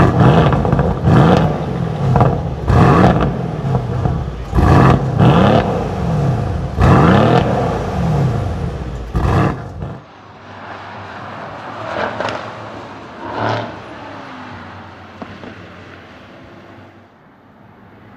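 The 4.0-litre twin-turbo V8 of a 2015 Mercedes-AMG C63 S wagon revved repeatedly while standing still, heard close to its quad exhaust tips: a series of sharp revs, the pitch rising and falling each time. About ten seconds in the sound drops suddenly to the same car heard more faintly as it drives on the circuit, swelling briefly twice.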